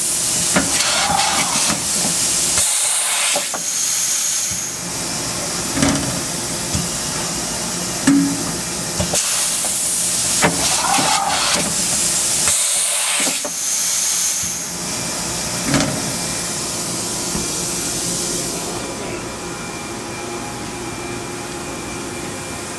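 Kitamura MYCENTER 0 SparkChanger dual-pallet changer cycling twice, about ten seconds apart, over the machine's steady hum. Each cycle has a long hiss, a short rising-and-falling whir as the pallet turntable swings, and a few dull knocks as it stops and seats.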